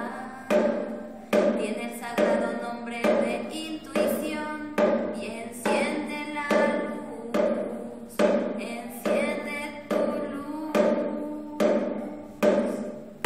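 Acoustic music for a sung song: a sharp struck beat a little more often than once a second, each beat ringing out and fading before the next, with some singing.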